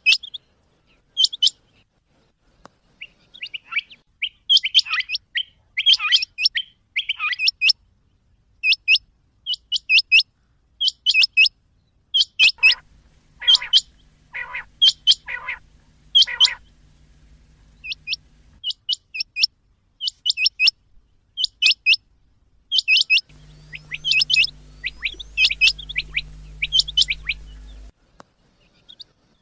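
Rain quail calling: short, sharp, high notes, mostly in pairs, repeated over and over at an uneven pace. A faint low hum runs under the calls for two stretches.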